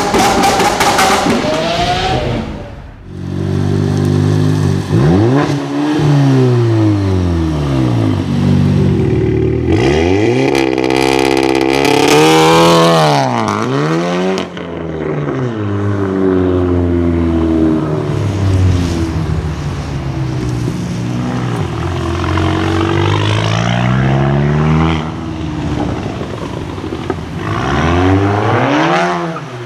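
Volkswagen Golf 7 R's turbocharged 2.0-litre four-cylinder, Stage 2 tuned with a fully decatted Armytrix exhaust, loud, revving up and dropping back over and over as the car accelerates and lifts off on wet pavement.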